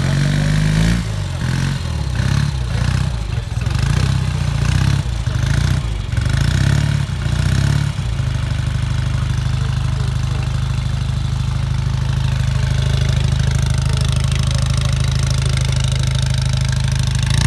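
Vintage motorcycle engine running: revved up and down several times, then settling to a steady, even idle about eight seconds in.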